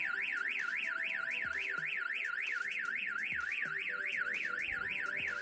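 Car alarm siren of a StarLine E96 security system sounding a fast up-and-down warble, about five sweeps a second, set off by its shock sensor when force is applied to the armed car.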